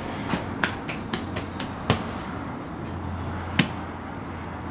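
Sharp slaps and knocks of bread dough being handled and slapped at a clay tandoor: a quick run of them, the loudest about two seconds in, then one more loud one later, over a steady low hum.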